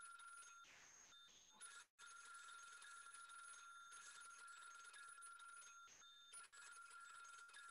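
A telephone ringing faintly in long, steady rings, breaking off about a second in and again about six seconds in.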